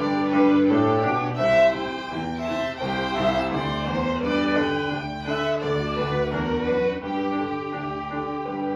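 A junior ensemble of violins playing a tune together, bowing a steady flow of notes.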